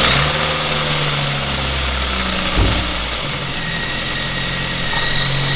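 Ford C-Max petrol engine running just after starting, with a loud, high-pitched whine over it that dips a little in pitch about halfway through. The whine is the car's long-standing fault noise on start-up. It sounds like the accessory belt but is not from it: it stays with a new idler pulley and with the belt removed.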